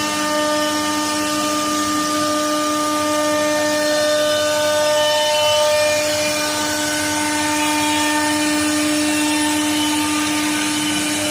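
CNC router spindle running at a steady speed as it carves a wooden furniture panel: an even whine over a hiss of cutting.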